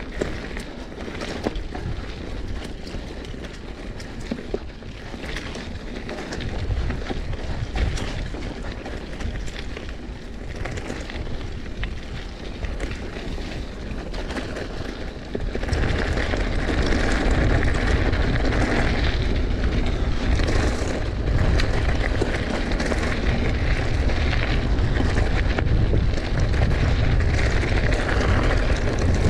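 Wind buffeting an action camera's microphone during a mountain bike ride, with the tyres rolling and the bike rattling over a rough singletrack trail. It gets much louder about halfway through.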